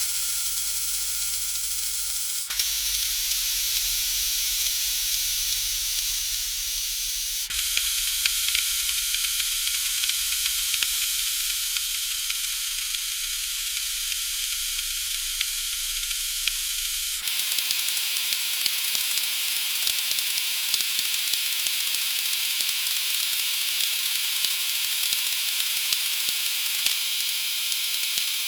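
Food frying in a pan: a steady sizzling hiss full of fine crackling pops. The sizzle's tone shifts abruptly three times, about two and a half, seven and a half and seventeen seconds in.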